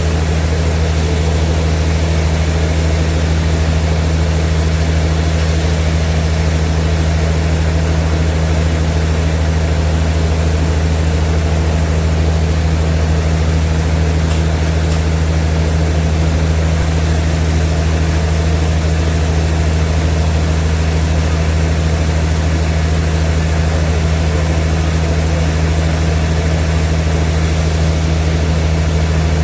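Sawmill machinery running steadily: a loud, even, deep engine hum that does not change.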